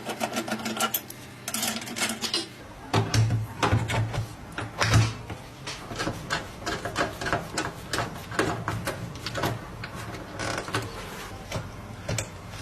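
Irregular clicks and knocks of hard parts being handled and fitted together, with a low steady hum coming in about three seconds in.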